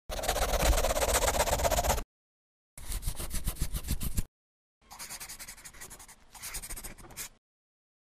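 Pen-on-paper scribbling sound effect accompanying a sketched drawing: three bursts of rapid scratchy strokes with dead silence between them, the last burst quieter.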